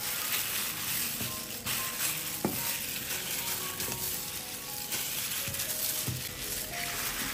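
Wet, crackling sounds of an oil-based spiced marinade being mixed, with a couple of sharp knocks about two and a half and six seconds in.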